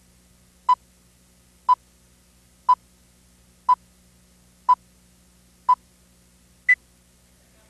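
Countdown-leader beeps: six short electronic beeps a second apart at one pitch, then a seventh, higher beep, over a faint hum.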